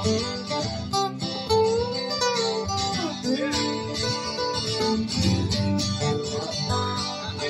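Two acoustic guitars playing the instrumental break of a country song: strummed chords under a picked lead line whose notes bend up and down in pitch.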